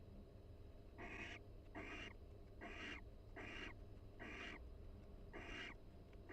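Barn owl pair giving soft, breathy hissing calls, one about every second, the quiet back-and-forth calling that mates use for pair-bonding, faint over a low steady hum.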